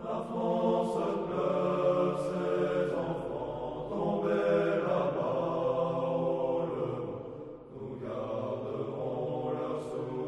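A group of men's voices singing together in unison, slow held notes changing every second or so.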